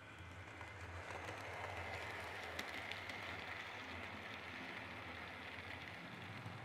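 HO scale model locomotive and passenger cars running on the track: a steady motor whine and wheel rumble with light clicks, growing louder about a second in.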